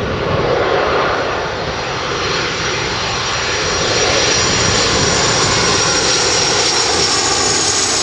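Jet airliner on short final flying close past, its engines a loud steady noise with a thin high whine over it, growing louder about halfway through.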